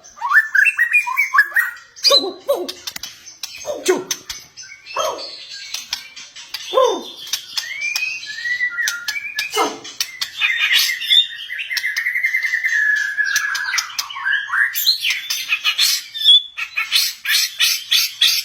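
White-rumped shama (murai batu) singing a varied, loud song: short whistled phrases and falling calls, then a long wavering trill about halfway through, and fast chattering ticks near the end.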